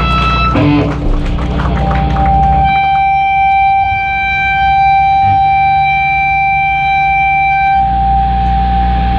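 Live band's amplified sound: a sustained high-pitched tone, typical of guitar feedback, starts about two seconds in and holds steady. Under it a heavy low amplifier drone cuts out for several seconds and comes back near the end.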